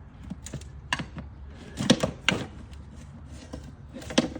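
Plastic air filter box on a Mercedes SL550 being pried open: a series of sharp clicks and knocks as the tight seal between lid and box gives way.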